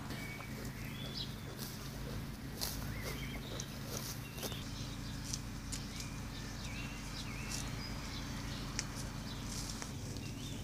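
Ponies grazing, tearing and chewing grass in scattered short crisp snaps, with small birds chirping now and then over a steady low hum.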